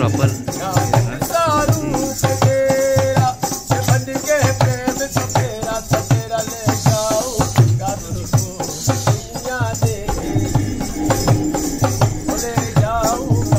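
Rajasthani folk music: a dholak drum keeping a steady beat under a wavering sung melody, with rattling, jingling percussion.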